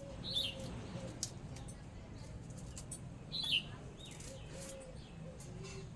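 A small bird chirping twice, each call a short falling chirp, over a steady low background hum with scattered light clicks.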